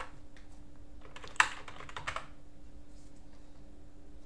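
Computer keyboard typing: scattered keystrokes, with one sharp, louder key strike about a second and a half in and a quick run of presses around two seconds, over a faint steady hum.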